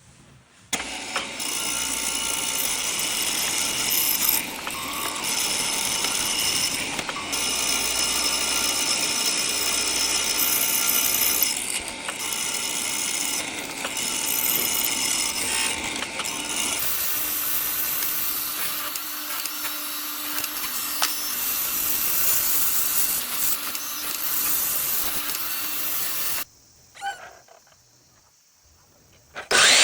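Woodworking power tool running continuously on wood, with a steady whine over cutting noise. Its tone shifts about two-thirds of the way through, then it stops, and another loud run begins right at the end.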